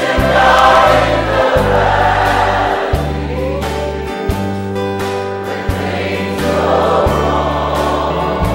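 Gospel music: a choir singing over a bass line that moves through held notes.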